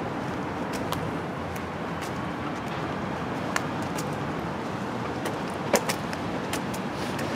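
Steady road traffic hum from the surrounding streets, with scattered light clicks and taps over it, the sharpest about two-thirds of the way through.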